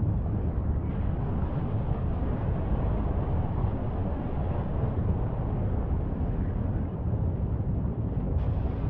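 A steady low rumbling noise, heaviest in the bass, with no separate knocks or tones; it carries slightly brighter, hissier high end from near the end.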